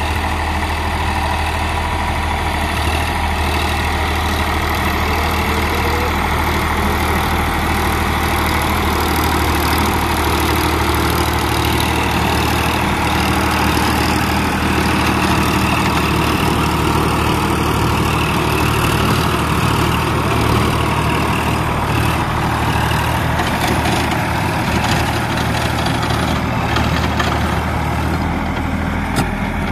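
Sonalika tractor's diesel engine running steadily under load, driving a rear-mounted rotary tiller that churns through the soil.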